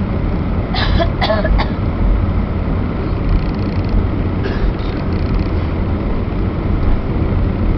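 Cabin noise of an Airbus A319 rolling along the runway after landing: a steady low rumble from the engines and the wheels on the runway.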